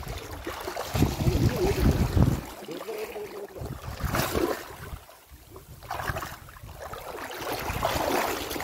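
River water splashing and sloshing as a person wades and drags a fishing net through it, with heavy low buffeting on the microphone for the first two seconds or so.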